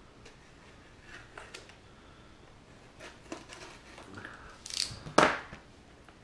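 Small cardboard box being opened by hand: faint scratches and clicks as its tape is picked and slit, then a short, louder tearing rip of cardboard and paper about five seconds in.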